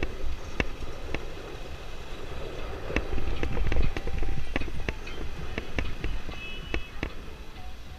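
Wind rumbling on the microphone of a handlebar-mounted camera during a slow street ride, with many irregular sharp clicks and rattles from the bike.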